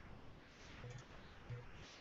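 Near silence: faint room tone, with two small faint sounds about a second and a second and a half in.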